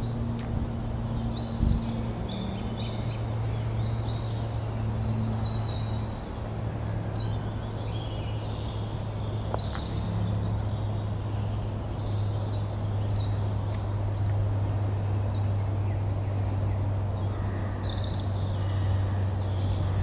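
Woodland songbirds singing and calling, with short high chirps and whistled phrases every second or so, over a steady low hum. A brief bump about two seconds in.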